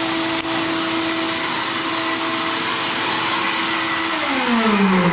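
Blast cabinet's vacuum motor running with a steady hum and hiss, then switched off about four seconds in, its pitch falling as it winds down.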